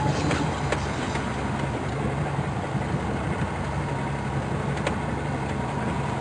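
Boat engine running steadily at low speed, with a few clicks.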